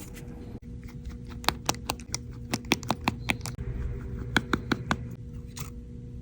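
A run of quick, light, irregular clicks and taps at a repair bench, over a faint steady electrical hum.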